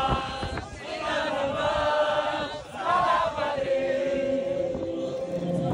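Real Madrid fans chanting together: a group of male voices singing a football chant in unison, ending on a long held note.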